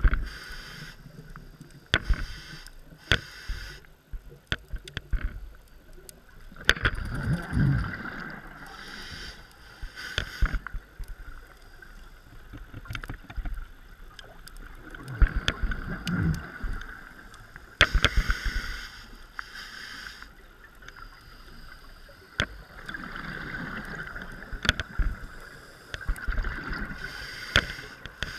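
Scuba diver breathing through a regulator underwater: a bubbling rumble of exhaled air about every eight seconds, alternating with a hissing inhale. Scattered sharp clicks run between the breaths.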